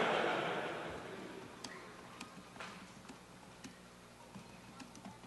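Audience laughter fading out over the first second, then sparse, sharp single clicks about two a second, from keys being pressed on a laptop.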